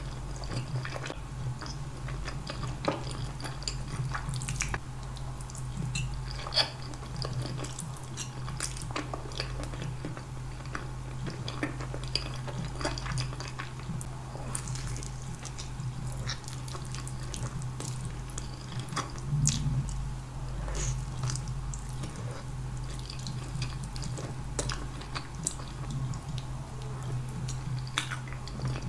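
Close-miked wet chewing and slurping of spaghetti in tomato sauce, with many small sticky mouth clicks and smacks. A steady low hum runs underneath.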